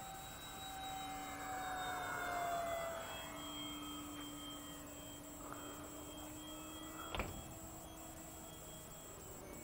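The electric ducted fans of a radio-controlled A-10 Warthog model jet whine in flight. The pitch slides down and the sound swells as the jet passes about two seconds in, then settles to a steadier whine. A short sharp knock comes about seven seconds in.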